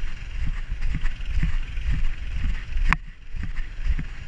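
Muffled, irregular low thumps and rumble from a camera harnessed to a dog as it moves about, with one sharp click about three seconds in.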